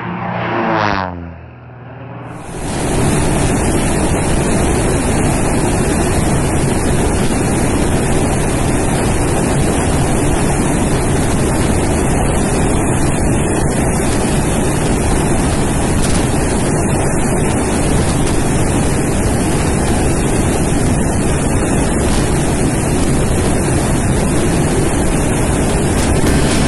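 A short sweep falling in pitch, then from about two seconds in a loud, steady rushing roar of wind and engine noise, as heard during air-to-air flight beside an F-16 fighter jet.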